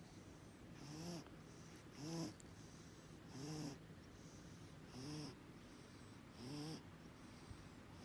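A cat with feline asthma breathing with a wheeze: about five wheezy, slightly whistling breaths, roughly one every second and a half, each with a short rise and fall in pitch and a hiss of air.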